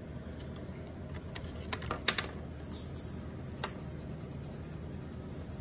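Crayons and a paper sheet being handled: a few light clicks and taps, the loudest about two seconds in, and a short papery hiss. Then a wax crayon is rubbed on paper to colour in.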